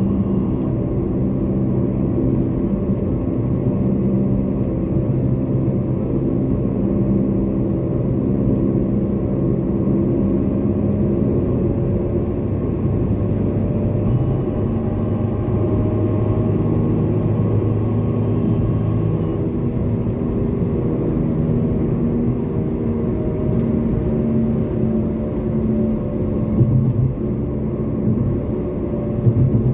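Toyota Corolla driving along, heard from inside the cabin: a steady drone of engine and road noise whose pitch drifts slowly up and down, with a couple of brief louder bumps near the end.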